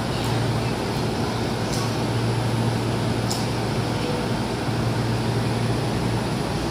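Steady hum and hiss of an electric commuter train standing at the platform with its doors open, its air conditioning and onboard equipment running. A couple of faint clicks sound in the middle.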